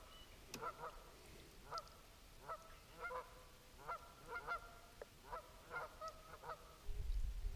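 A flock of geese honking, a series of about a dozen fairly faint calls at irregular intervals. Near the end the honking stops and a low rumble comes in.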